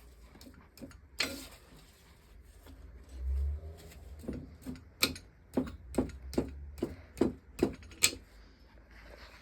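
A run of sharp taps and clicks, about two a second, through the second half, with a brief low hum about three seconds in.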